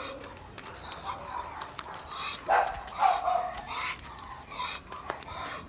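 Dog barking, a few separate short barks in the second half.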